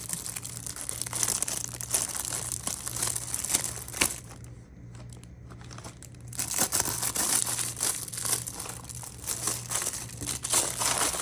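Packaging crinkling and rustling as small items are unwrapped and handled, with a moment of tearing; it eases off for a couple of seconds midway, then picks up again. A low steady hum runs underneath.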